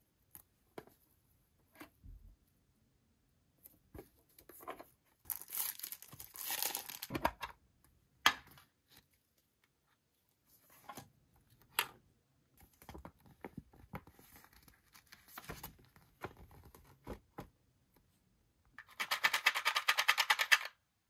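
Plastic shrink wrap crinkling and tearing off a puzzle tin, then a sharp click about eight seconds in as the metal lid comes off. Light handling taps follow, and near the end the cardboard jigsaw pieces rattle quickly as they are shaken in the open tin.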